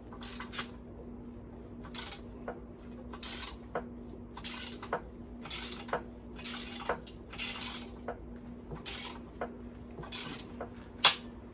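A hand ratchet working a stubborn bolt on a Mercury 150 outboard's exhaust midsection: about ten short bursts of ratchet clicking, one per stroke, with a few light metal clinks. Near the end comes a single sharp crack, the loudest sound, as the bolt snaps off.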